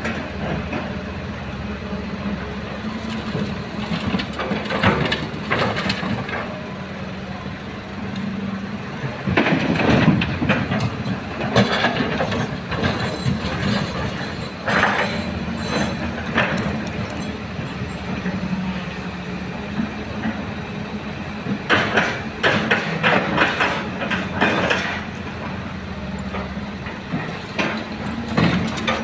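Excavator's diesel engine running steadily while loading a dump truck, with several bursts of clanking and rattling from the work.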